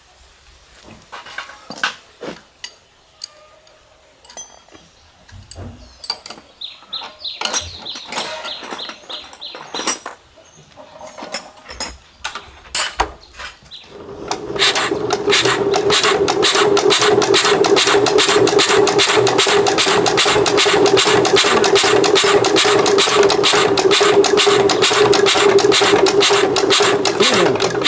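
Small diesel engine catching about fourteen seconds in and then running loudly with a fast, even knock, after a stretch of scattered clicks and knocks of work on it.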